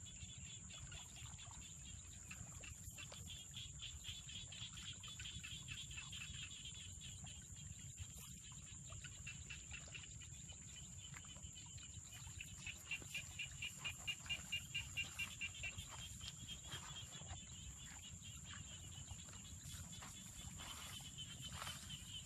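Insects chirping: a steady high-pitched drone with a fast pulsing trill beneath it, which swells a little past the middle into a louder run of about three pulses a second. A low rumble runs underneath.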